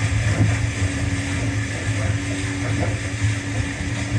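Jet ski engine running steadily under way, a constant low hum, with wind and water rushing past.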